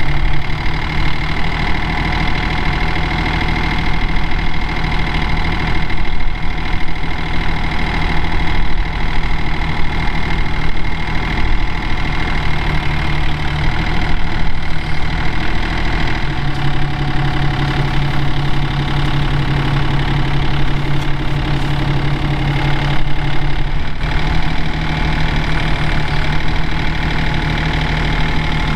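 O&K RH 1.17 mini excavator's diesel engine running steadily, with a steady high whine over it. Its low note shifts a few times while the machine is worked.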